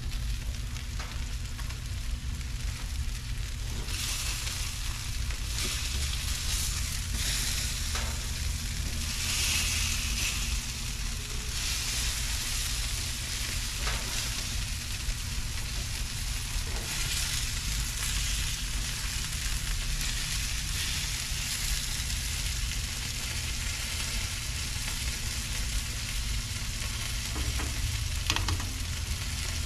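Chicken quarters sizzling on nonstick grill mats over a gas grill's burners, the sizzle growing stronger about four seconds in. A few sharp clicks of metal tongs as the pieces are turned, over a steady low rumble.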